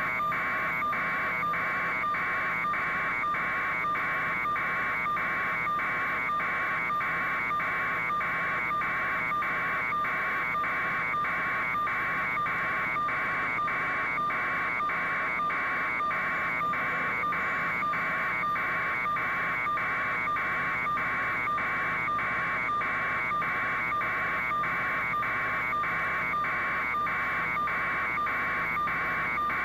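Steady electronic buzz on the raw broadcast audio feed, pulsing evenly about twice a second at one unchanging pitch.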